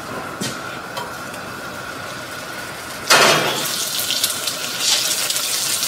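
Flour-dusted chicken pieces hit hot sesame oil in a nonstick frying pan, setting off a sudden loud sizzle about three seconds in. The sizzle keeps going as the pieces are stirred and swells again near the end.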